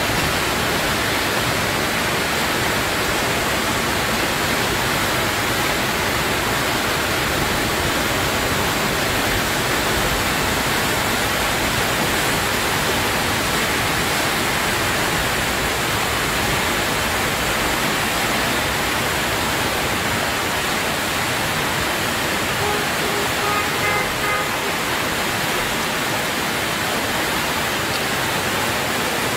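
Flash-flood torrent of muddy water rushing down a street, a steady, even rushing noise.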